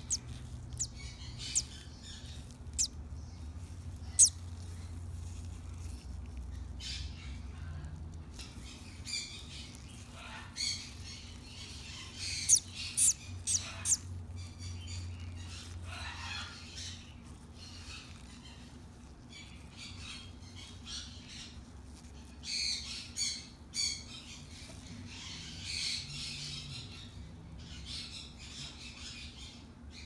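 Newly hatching sun conure chick calling with high, raspy squawks and cheeps, in clusters about three-quarters of the way through, while its eggshell is picked away in small, sharp clicks and cracks, over a low steady hum.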